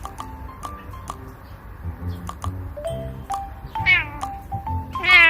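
A cat meowing twice over light background music: a short falling meow about four seconds in, then a louder, longer meow near the end.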